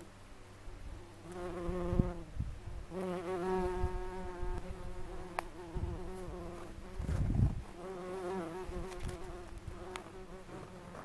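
Bumblebee buzzing in flight, a wavering hum that swells and fades as it moves about, loudest a few seconds in. A couple of short low thumps, about two seconds in and again past the middle.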